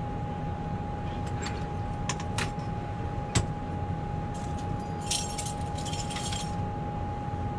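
A few sharp metallic clicks and knocks from a metal shipboard bunk being handled, the loudest about three seconds in, then a second or so of light metal jingling like keys about five seconds in. Under it runs the steady hum of the ship's ventilation with a faint constant whine.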